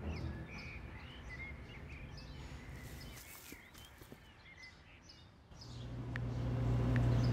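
Outdoor ambience with small birds chirping over a light hiss. About five and a half seconds in, a low steady hum swells up quickly and holds.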